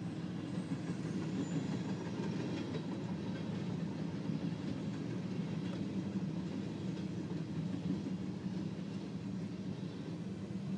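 Freight train of boxcars and covered hopper cars rolling past through a road crossing: a steady noise of wheels on the rails, heard from inside a stopped car.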